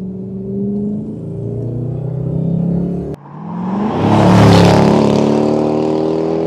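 Car engine running under load, its note climbing slowly, cut off abruptly about three seconds in. A second engine passage follows, swelling to a louder rev with a rush of noise near the middle, then easing off slightly.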